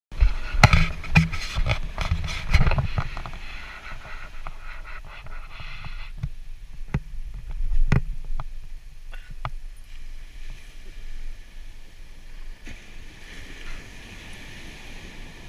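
Sharp knocks and rubbing on the camera's microphone during the first three seconds, with a few more knocks later, over steady wind and surf washing on the beach; the surf hiss grows stronger near the end.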